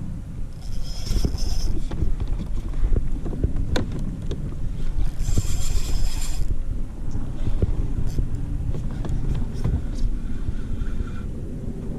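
Wind rumbling on the microphone with knocks and clicks of gear handling on a kayak. There are two short bursts of high whirring from a spinning fishing reel, about a second in and again around five to six seconds in, while a hooked fish is brought in.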